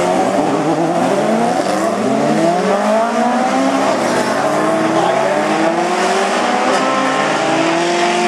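Several autocross race cars of the over-1600 cc class running hard on a dirt track, their engine notes overlapping, each climbing in pitch and dropping back with gear changes.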